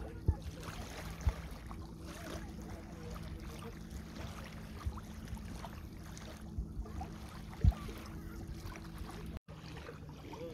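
Small waves lapping on a sandy lakeshore under a steady low drone, with a few sharp low thumps on the microphone. The sound drops out for an instant near the end.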